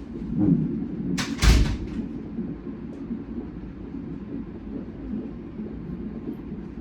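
Fetal heart monitor's Doppler speaker playing the whooshing pulse of a baby's heartbeat during a non-stress test. A brief loud scuffing noise comes about a second and a half in.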